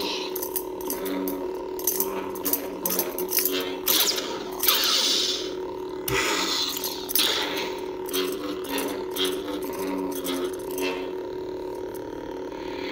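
Lightsaber hum from a Nano Biscotti v4 sound board played through the hilt's speaker: a steady electronic drone with swing and clash effects cutting in again and again as the hilt is moved.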